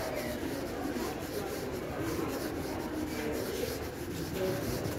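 Rubbing and rustling handling noise on a handheld camera's microphone while walking, with faint voices in the background.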